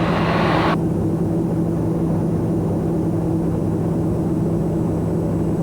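Steady cabin drone of a Socata TBM 910's Pratt & Whitney PT6A turboprop engine and propeller in flight, with a hiss that cuts off suddenly just under a second in.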